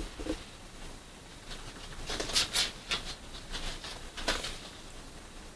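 Faint room tone with a few short rustles and clicks, a small cluster about two seconds in and another near four seconds.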